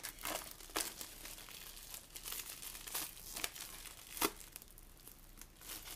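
Clear plastic shrink-wrap crinkling as it is peeled off a hardcover notebook, in irregular crackles with a few sharper ones.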